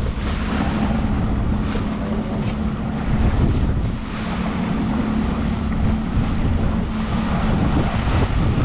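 Suzuki outboard motor running at a steady trolling speed, a constant low hum under the rush of the boat's wake and heavy wind buffeting the microphone.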